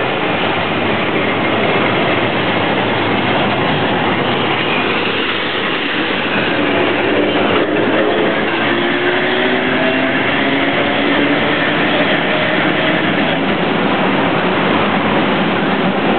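1923 Perley Thomas streetcar running on its rails with a steady, dense noise. About halfway through, a faint whine rises in pitch as the car gathers speed, and there is a single click.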